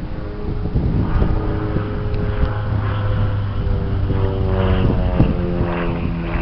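A Super Decathlon 8KCAB light aerobatic plane's four-cylinder engine and propeller droning overhead, the pitch sliding down in the second half. Wind buffets the microphone.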